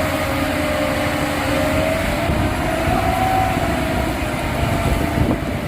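A heavy vehicle engine running steadily, a dense rumbling noise with a faint tone that rises slightly and falls back about three seconds in.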